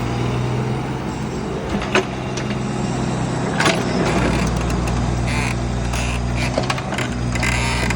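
Mini excavator's diesel engine running steadily, with a couple of sharp knocks and short bursts of hiss.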